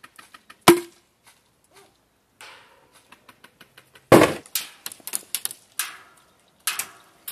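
Sharp cracks and knocks of airsoft gunfire and hits against a plywood wall. There is one loud crack under a second in, then a heavy thump about four seconds in, followed by a quick string of cracks and knocks.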